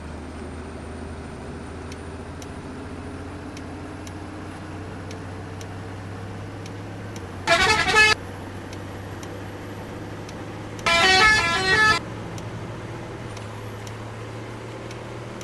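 Bus telolet horn, a two-button Haulin multi-tone horn, sounding two short bursts of its stepping tune, the first under a second long and the second about a second, over the steady hum of the bus's idling engine.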